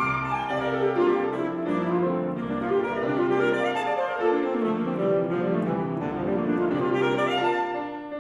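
Alto saxophone and piano playing together in a classical duo passage, many notes moving quickly over each other, the volume easing off near the end.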